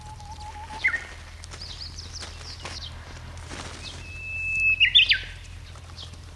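A songbird singing two phrases. Each is a long, steady whistle ending in a quick flourish that drops in pitch; the second phrase, about four seconds in, is higher and louder. Fainter chirps of other birds sound in between.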